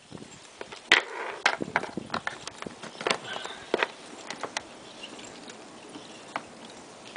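Scattered sharp clicks and light taps of multimeter test probes and leads being handled and set against a battery-pack connection, the loudest click about a second in.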